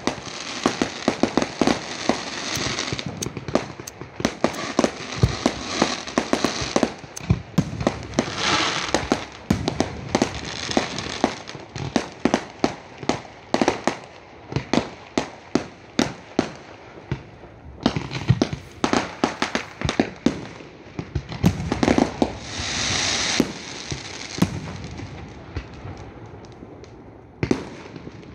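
Fireworks display: a dense, uneven run of sharp bangs from bursting shells, with stretches of crackling hiss from crackle or glitter effects near the start, about a third of the way through, and again later on.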